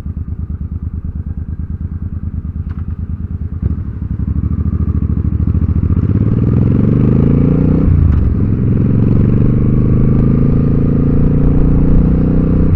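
Motorcycle engine idling with an even pulse, then a clunk a few seconds in as the bike pulls away; the revs climb, drop at a gear change about eight seconds in, and climb again in the next gear.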